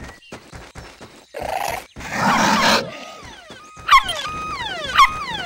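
Cartoon puppy's loud noise-making: two rough noisy bursts, then sharp yelping barks about once a second, each trailing off in falling pitch.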